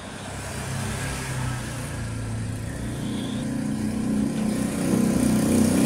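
A motor vehicle engine running with a steady low hum, growing gradually louder.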